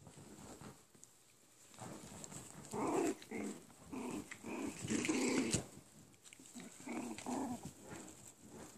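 Two small dogs growling at each other while play-wrestling, in a string of short bursts through the middle, loudest about halfway.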